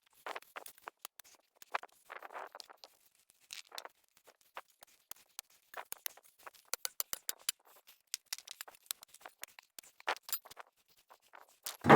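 Hand digging beside a broken concrete slab: a tool scraping in gravelly soil, with many small sharp clicks of stones and concrete bits, and a few short scrapes in the first few seconds.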